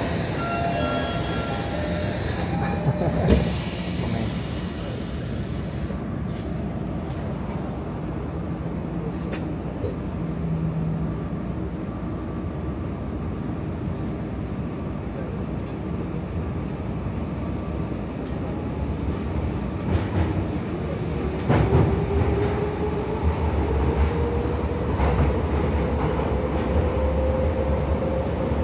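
Tokyo subway train running, with an even rumble throughout. A loud hiss lasts a few seconds near the start, and in the last few seconds a steady whine rises in pitch over a deepening hum.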